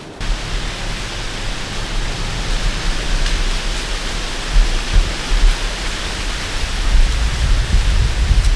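Wind buffeting the microphone: a loud, even rushing noise that starts suddenly, with gusty low rumbles swelling and fading.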